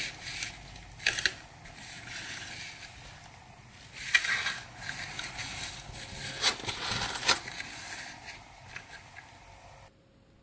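Foil sticker packets crinkling and crackling as they are handled and gathered into a stack, with several sharp crackles; the sound cuts off suddenly near the end.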